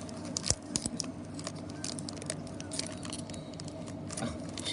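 Trading cards and packaging being handled at a table: a stream of small clicks, taps and rustles, with one sharper knock about half a second in.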